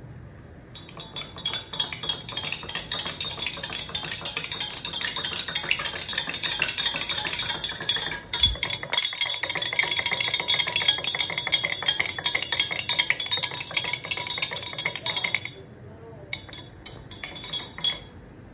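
A spoon stirring briskly in a cup, a fast run of small clinks against the sides. It starts about a second in, breaks briefly about halfway, and stops a few seconds before the end, followed by a few scattered clinks.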